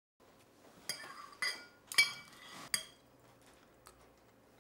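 Cutlery clinking against a china plate: four sharp clinks, each with a short ring, while a pancake is cut and eaten.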